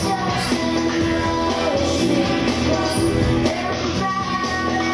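Music: a song with a singing voice.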